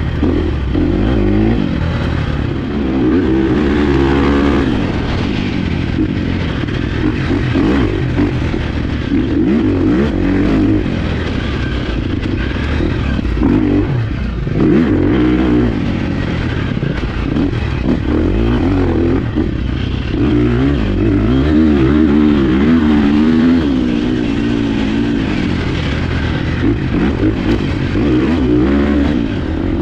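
2023 Husqvarna 350 FX's single-cylinder four-stroke engine under way on a dirt trail, its pitch rising and falling repeatedly with throttle and gear changes, with a brief drop-off about halfway through.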